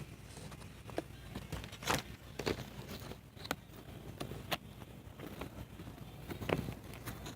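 Strong wind rumbling on the microphone, with about a dozen irregular sharp clicks and taps.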